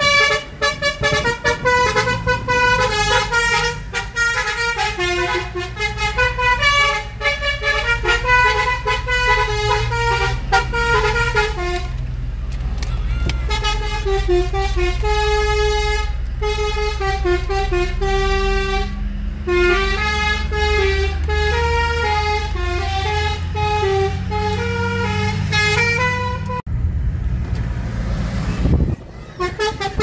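Basuri multi-tone 'telolet' bus horn fitted to a car, playing tunes of short, stepping notes, with a brief pause about twelve seconds in and the tune breaking off a few seconds before the end. The car's running and road noise sits underneath.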